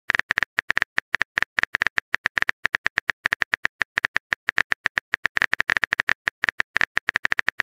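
Phone keyboard typing sound effect from a texting-story chat app: rapid, irregular clicks, about nine a second, as the next message is typed.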